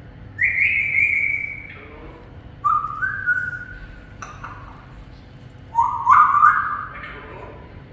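Pet parrot whistling three separate notes, each climbing in a step or two; the first is the highest and the last, near the end, the loudest.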